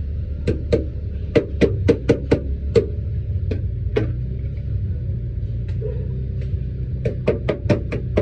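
Quick runs of sharp taps, several a second, with a pause in the middle, over a steady low hum.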